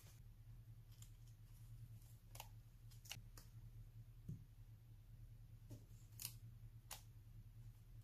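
Faint, scattered crisp ticks and rustles of a paper cut-out being handled and laid against a scrapbook page, with a soft thump about four seconds in, over a low steady hum.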